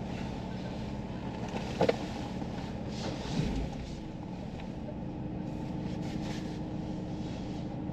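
Renault Master camper van's engine idling, a steady low hum heard from inside the cab, with one sharp click about two seconds in.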